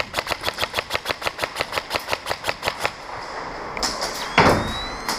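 Airsoft rifle firing a rapid string of shots, about seven sharp clicks a second for around three seconds, then a loud thud about four seconds in and a few more shots near the end.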